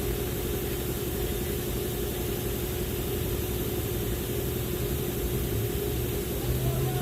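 A steady motor hum with a constant tone over a low rumble and a hiss of noise.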